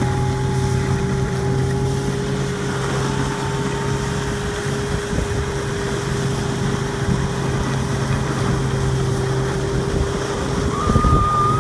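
Snowmobile engine running at a steady pitch while towing riders, over a steady hiss of snow and wind. A short high-pitched held call drops away near the end.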